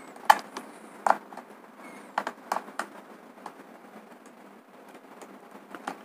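Light clicks and taps of a screwdriver and a wire end being worked into a two-way switch's screw terminal. There are several sharp ticks in the first three seconds and only a few after.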